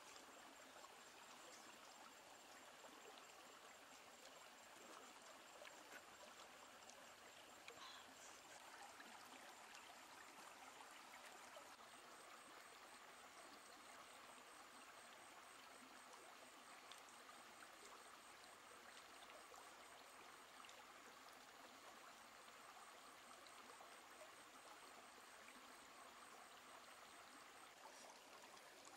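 Near silence: a faint steady rushing hiss of outdoor ambience, like a distant stream, with a thin high whine and a few faint clicks.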